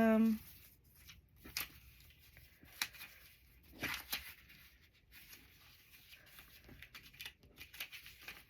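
Magazine paper cutouts being shuffled and handled: scattered short paper rustles and light taps, a few per second at most.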